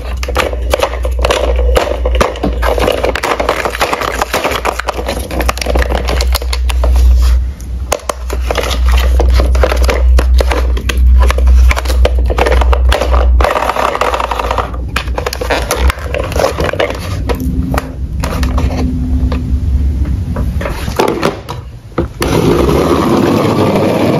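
Plastic toy police monster truck handled close up: irregular scraping, rubbing and knocking of hard plastic and chunky rubber tyres, with a deep rumble underneath.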